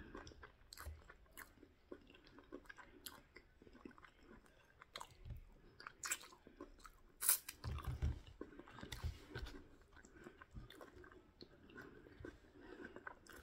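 Close mouth sounds of a person eating fried ripe plantain with bean stew by hand: faint chewing with scattered wet clicks and lip smacks, and a few sharper clicks a little past halfway.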